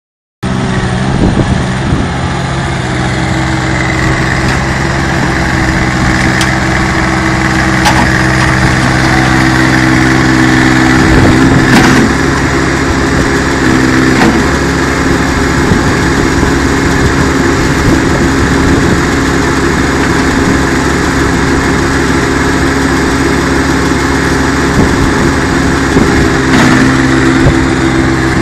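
Loader engine running steadily while it drives a hydraulic pan concrete mixer that is churning sand and cement, with a few sharp knocks along the way.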